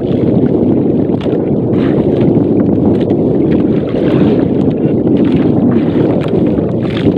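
Small fishing boat's engine running steadily, loud and close, with a little wind on the microphone.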